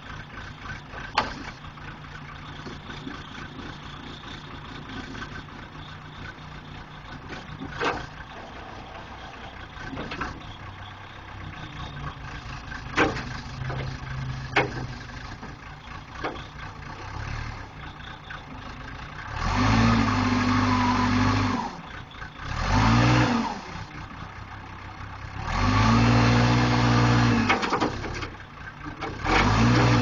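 Case 480C backhoe loader's engine idling, with a few sharp clanks, then revving hard four times in the second half as the front loader strains to lift a Caterpillar D6D dozer blade, a load above the machine's rated capacity.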